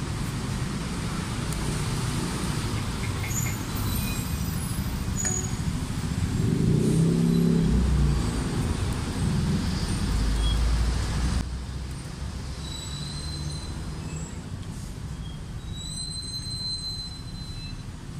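Street traffic noise: a steady low rumble of passing vehicles, louder from about six to eleven seconds in, with a few brief high squeals near the end.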